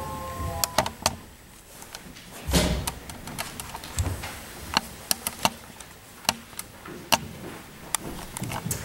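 Scattered clicks and knocks of people moving about and handling objects, with a heavier dull thump about two and a half seconds in.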